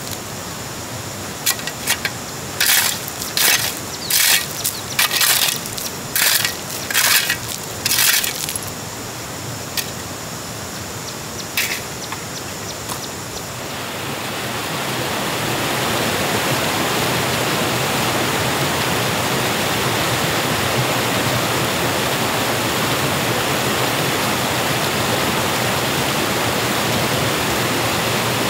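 Brisk scraping or brushing strokes, about ten in the first eight seconds, then two single clicks. About halfway through, a steady rushing noise of water sets in and holds.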